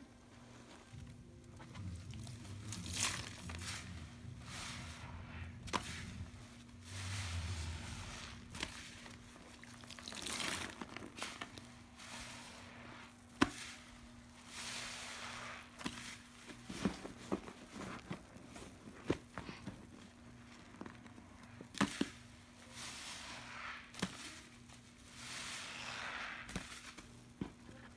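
Foam sponges soaked in soapy pine-cleaner solution being squeezed and kneaded by hand: wet squelching and foamy hissing in repeated waves, with a sharp click or pop now and then.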